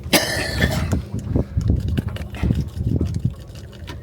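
Water lapping and slapping against the hull of a small boat, with a short louder rush right at the start and scattered small splashes and knocks after.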